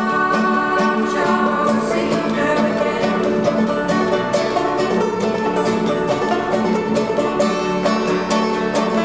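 Old-time clawhammer banjo and acoustic guitar playing an instrumental break together, with steady picked rhythm.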